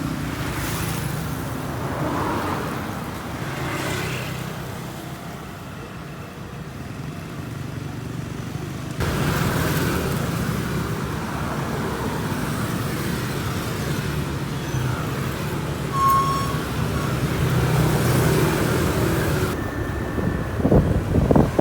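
Road traffic noise with a steady low vehicle engine rumble, stepping up suddenly about nine seconds in; a brief high beep sounds near the end.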